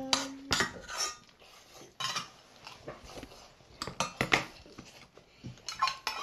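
Metal spoons clinking and scraping against stainless steel bowls and a steel pot as people eat, in irregular sharp clicks: a few early on, a cluster about four seconds in, and a quick run of them near the end.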